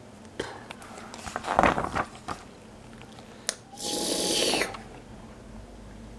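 Paper comic-book page being turned, with a loud rustle about one and a half seconds in, then a person making a wet mouth slurping sound for about a second, as the sound effect for a 'SLURP' panel.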